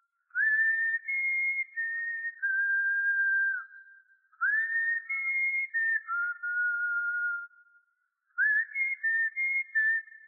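A person whistling a tune: long held notes stepping up and down in pitch, in three phrases of about three seconds with short breaks between them.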